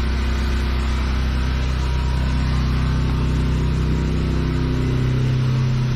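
A pressure washer's engine running steadily, with an even hiss over its hum; the hum's note shifts a little after about four seconds.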